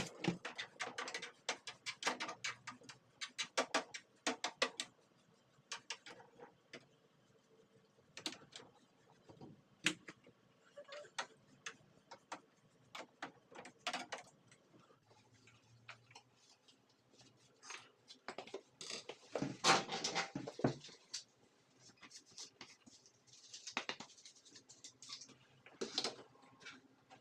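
Handling noises: a quick run of sharp clicks and taps, thinning out after about five seconds, with a short burst of rustling about twenty seconds in.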